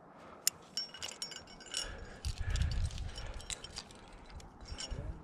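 Aluminium carabiners of a climbing quickdraw clinking and clicking as they are clipped onto protection in a rock crack and the rope is clipped through. There is a duller low rumble of handling near the middle.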